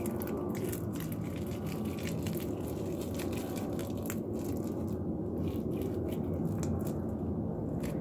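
Slime being kneaded and squeezed by hand, giving many small crackles and pops, over a steady low hum.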